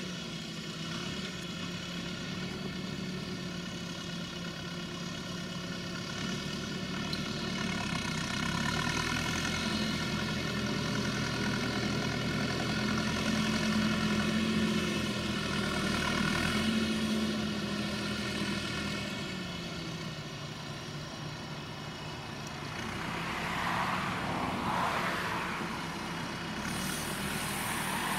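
Valtra tractor's diesel engine running under load while pulling a round-bale wrapper; the engine note rises and grows louder through the middle, then drops back, with a rougher mechanical noise near the end.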